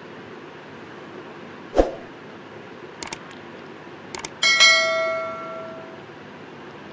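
Subscribe-button animation sound effect: a thump, then two pairs of mouse clicks, then a notification bell that rings and fades over about a second and a half. A steady low hiss runs underneath.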